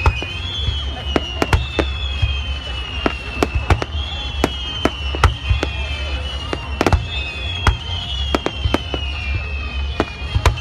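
Aerial fireworks going off, with many sharp bangs and crackling pops at an irregular pace, often several a second.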